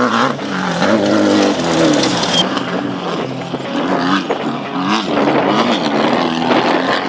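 Off-road race vehicle's engine revving hard, its pitch climbing and dropping again and again as it drives, under a broad rushing noise.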